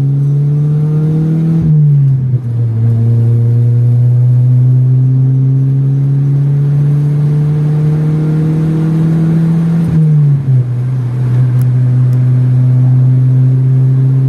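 Chevrolet Vectra engine accelerating hard, its pitch climbing through the gears and dropping at an upshift about two seconds in and again about ten seconds in. It pulls cleanly, without the misfiring that a poorly plugged wire had caused.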